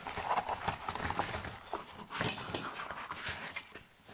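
Plastic and cardboard packaging being handled, a run of crinkling and rustling with irregular light knocks and taps.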